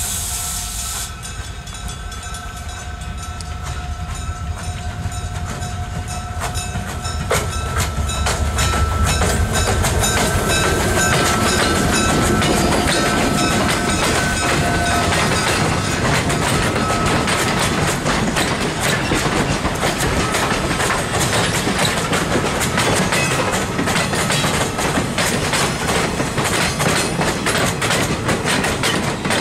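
A diesel-led train of cabooses, coaches and freight cars passing close by on jointed rail. A steady tone holds over the first seven seconds or so, then the steady clickety-clack of wheels over the rail joints, louder from about ten seconds in.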